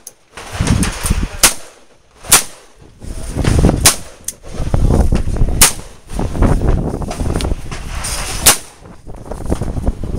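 AR-15 rifle firing single shots, about seven of them spaced irregularly a second or so apart, with low rumbling noise between the shots.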